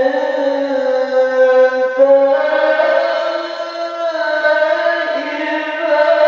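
A man reciting the Quran in the melodic tilawah style, one voice holding long ornamented notes that slide slowly in pitch.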